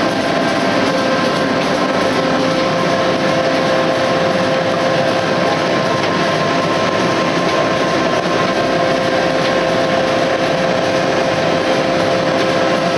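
Stack-type flexographic printing press running: a steady mechanical noise with several constant whining tones from its motors and drives.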